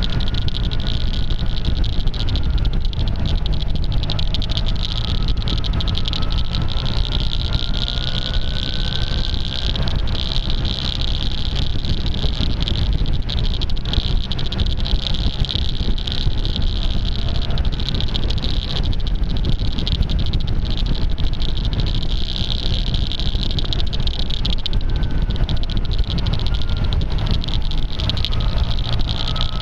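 Ride noise from a camera mounted on a moving maxi-scooter: wind rush and engine drone, the engine's pitch rising about a third of the way in and again near the end. A steady crackle of clicks runs through it, caused by tape stuck over the camera's microphone.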